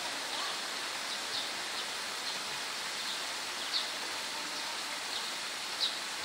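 Steady rush of running water, with a small bird giving short high chirps now and then, the loudest near the middle and near the end.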